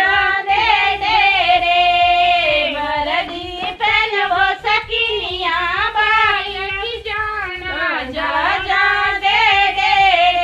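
Women's voices singing a mangal geet, a traditional wedding song, in a sing-song melody with several long held notes.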